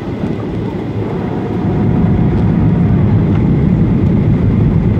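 Cabin noise of a Boeing 737-800 on approach with flaps extended, heard inside the cabin: a steady low rumble of its CFM56-7B engines and airflow, growing a little louder about a second or two in.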